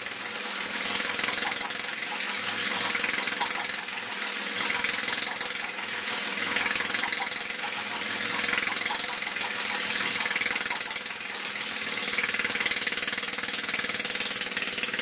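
Small minibike engine running at a raised idle, set on the idle screw, while the riderless bike turns tight donuts; its sound swells and fades about every two seconds.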